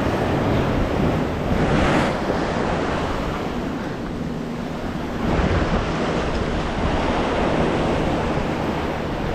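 Ocean surf washing and breaking over shoreline rocks, with two louder surges about two seconds and five and a half seconds in, and wind buffeting the microphone.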